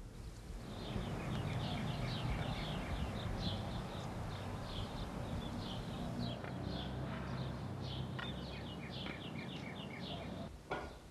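Small birds chirping over and over, many short quick notes, over a low steady rumble of outdoor background.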